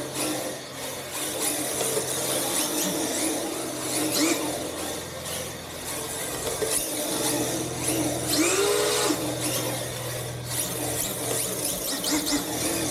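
Small electric motor of a radio-controlled car running continuously as it drifts in donuts, with squealing; its pitch swings up and down about two thirds of the way through.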